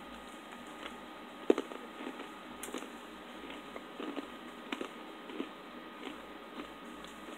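Someone biting into a crunchy French army chocolate biscuit and chewing it: one sharp crack about one and a half seconds in, then a string of small irregular crunches.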